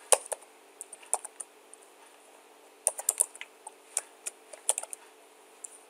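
Typing on a computer keyboard: separate keystrokes in short, uneven runs, with a pause of about a second around two seconds in.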